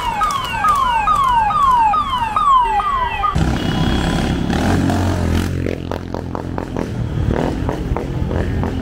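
Escort vehicle siren sounding a fast yelp, a falling sweep repeated about three times a second, which cuts off a little over three seconds in. It is followed by the rumble of vehicle engines passing.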